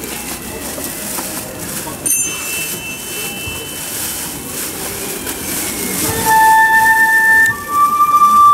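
Low background murmur, then about six seconds in a Minshingaku transverse bamboo flute (minteki) begins playing: one long held note, then a second, higher held note.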